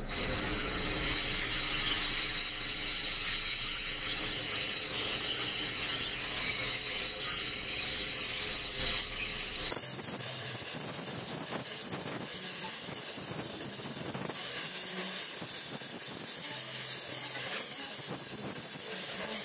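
Gas welding torch flame hissing steadily as it heats an aluminium crankcase casting while filler rod is melted in, with a faint high whistle through the first half.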